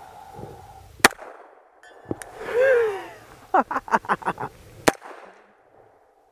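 A Glock 21 Gen 4 .45 ACP pistol fires a single sharp, loud shot about a second in. A voice calls out briefly in the middle, and another sharp crack follows near five seconds.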